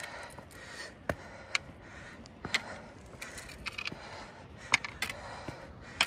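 Hiker's footsteps on a rocky trail: irregular sharp clicks and scrapes of boots on stone, about one or two a second, with breathing between them.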